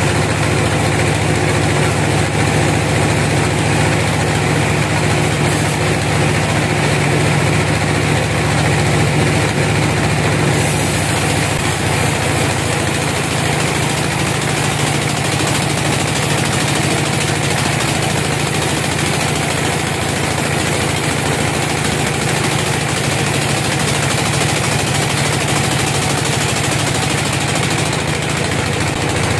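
Band sawmill running, its blade cutting lengthwise through a teak log: a steady low machine hum under the even rushing noise of the blade in the wood.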